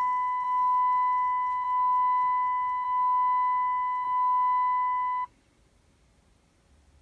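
Pickup truck's dashboard warning chime: a steady electronic beep tone, softly re-struck about every second, that cuts off suddenly about five seconds in, leaving the cab nearly quiet.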